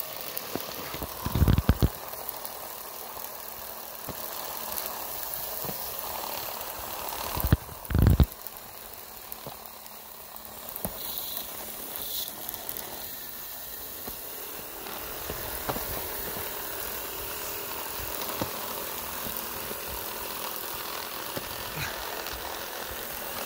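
Small electric motor of a 3D-printed G scale sweeper car running steadily, spinning its roller brush, which hisses as it sweeps light powder snow off the track. Two dull low thumps stand out, one near the start and one about a third of the way through.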